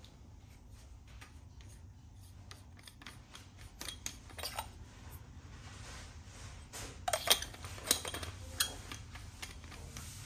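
Small plastic clicks and rubbing from a JBL wireless microphone being handled, its battery sleeve taken off the body over the batteries and slid back on, with a few sharper clicks in the second half.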